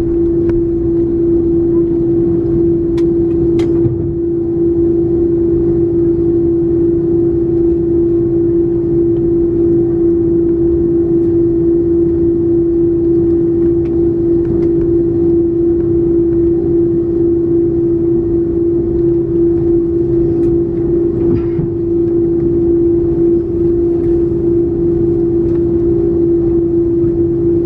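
Inside the cabin of an Airbus A330-300 taxiing with its GE CF6-80E1 turbofans at idle: a steady droning hum over a low rumble, with a few faint clicks in the first few seconds.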